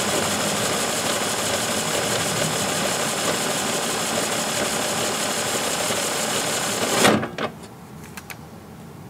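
A power drill spins the mower's reel cylinder while the Mower Mate abrasive, sprung against the blades, sands the pitted cutting edges in a steady rasping whir. About seven seconds in it stops with a sharp clunk, followed by a few light clicks.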